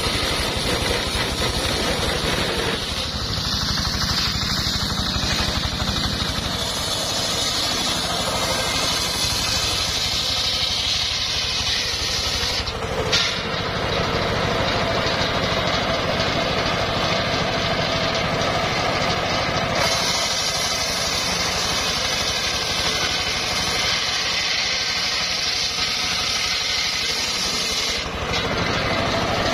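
Homemade circular sawmill running steadily while sawing timber. A sharper, high-pitched cutting hiss rises over the machine's drone in two long stretches and drops back in between.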